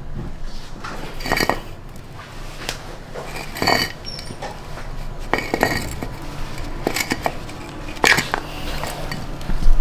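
Hard objects, such as dishes, utensils or metal parts, clinking and clattering as they are handled. There are several separate clatters a second or two apart.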